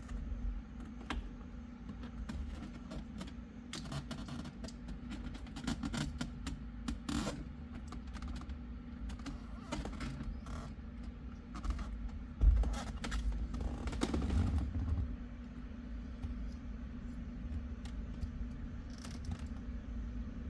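Irregular light clicks and taps of hands working the plastic airbag module and its connectors out of a steering wheel, with a louder knock about twelve seconds in, over a steady low hum.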